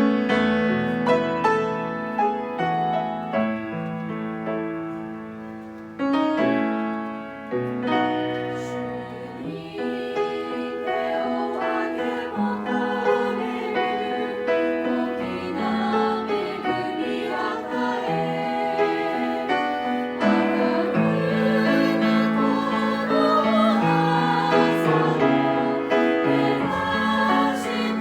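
Church choir singing a sacred song with piano accompaniment. The piano plays alone at first, and the voices come in about ten seconds in.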